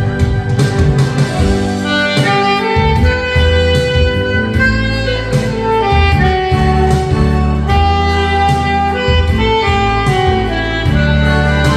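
Alto saxophone playing a slow, held melody over an accompaniment with a steady drum beat; the saxophone line comes in about two seconds in.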